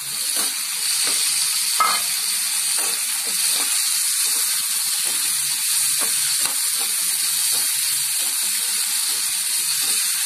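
Chopped tomatoes sizzling in hot oil with onions and green chillies in a stainless steel kadai, stirred with a metal spoon that scrapes along the pan. A sharper knock comes about two seconds in.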